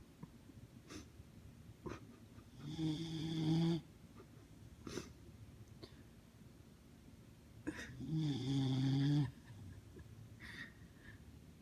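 Snoring: two long snores with a steady, droning pitch, one about three seconds in and a longer one about eight seconds in, with soft breathing and a few small clicks between them.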